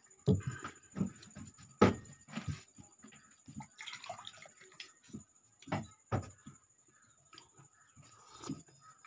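Sharp clinks and knocks of a steel spoon in a steel bowl and of steel vessels handled on a table, the loudest about two seconds in. About four seconds in, water is poured from a steel tumbler into a glass.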